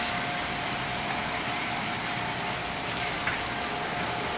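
Car-wash equipment running: a steady hiss with a constant high whine through it.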